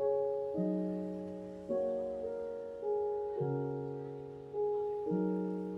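Slow, gentle piano music: soft chords struck about once a second, each left to ring and fade before the next.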